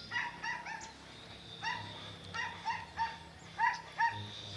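An animal giving short, pitched yelping calls, about ten in quick groups, the last two near the end the loudest.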